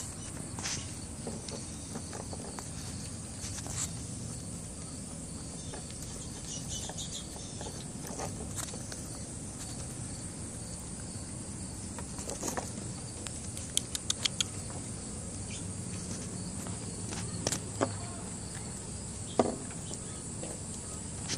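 Steady high-pitched insect chorus, like crickets, with scattered light clicks and taps, a quick run of them about fourteen seconds in, as a chipmunk handles acorns on the wooden deck boards.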